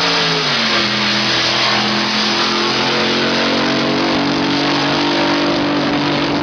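Drag boat engine running at high revs. Its pitch drops in two steps within the first second or so, then holds fairly steady.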